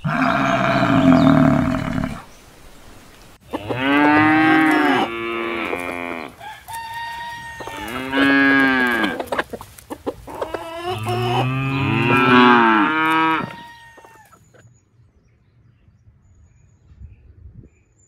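Cattle mooing: several long, drawn-out moos one after another. A loud, rough noise comes first, in the opening two seconds.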